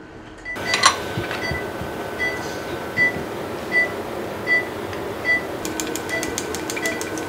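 Operating-room patient monitor beeping in time with the pulse: a short high beep about every three-quarters of a second, over a steady equipment hum. A knock comes about a second in, and a fast run of clicks near the end.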